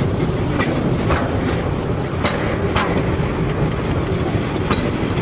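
Freight train of tank wagons rolling past: a steady rumble of steel wheels on rail, with a few sharp clacks as the wheels cross rail joints.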